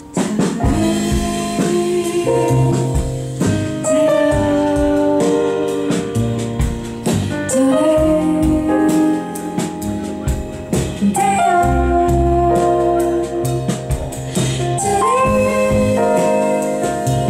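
Recorded music with keyboard and bass, starting abruptly, played back through Wilson Alexandria XLF loudspeakers in a hi-fi demonstration.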